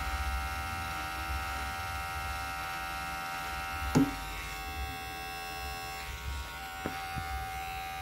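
Oraimo Smart Clipper 2 cordless hair clipper running steadily with an even electric buzz, left on to work freshly applied oil down through its blades. A single sharp knock comes about four seconds in.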